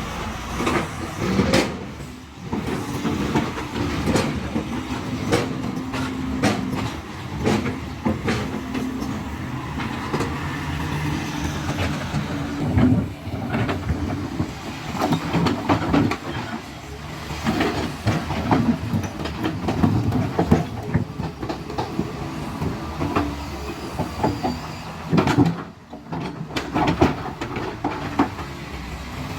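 Excavator's diesel engine running under load, its low note shifting as the machine works, with repeated sharp metal clanks and knocks throughout.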